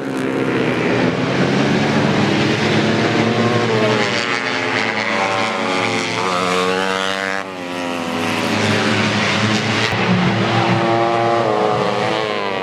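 Several tuned 150cc four-stroke underbone race motorcycles running hard together, their engine notes rising and falling as they rev and shift, with a brief drop about seven seconds in.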